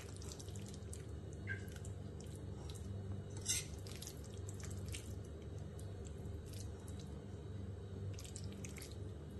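A steel spoon scoops thick vegetable curry (aviyal) out of a stainless steel pan onto a plate, with soft squelches and scattered light clinks and scrapes of metal on metal. The loudest clink comes about three and a half seconds in, over a steady low hum.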